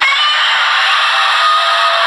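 Godzilla roar sound effect blaring from a 12-volt motorcycle voice-module's small speaker. It starts abruptly as the power is connected and plays loud and steady, thin and harsh with no bass.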